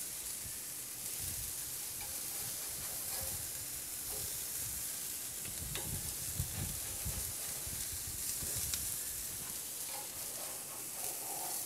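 Turkey burger patties sizzling steadily on a hot grill grate as they are flipped, with a few faint clicks of a metal spatula against the grate.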